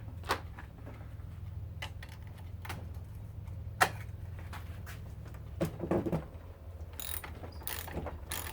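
Scattered metallic clicks and knocks from hand tools and metal parts being worked while a garbage disposal is dismantled, with one sharper click about four seconds in, over a steady low hum.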